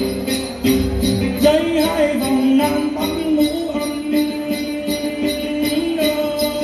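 Then music: jingle bells shaken in a steady beat, about three times a second, with the plucked đàn tính gourd lute and a man singing a wavering melody that comes in about one and a half seconds in.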